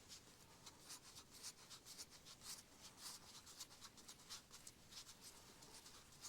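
Faint, quick scratching strokes on a surface, a few a second and unevenly spaced.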